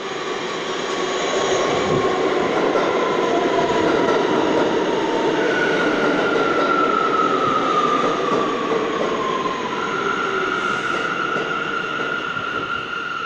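Subway train running past along the platform track: a loud, continuous rumble of wheels on rail that builds over the first few seconds. A high squeal glides down in pitch from about five seconds in, then holds steady near the end.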